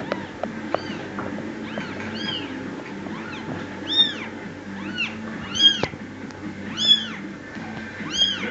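Kittens mewing over and over: high calls that rise and fall in pitch, roughly one a second.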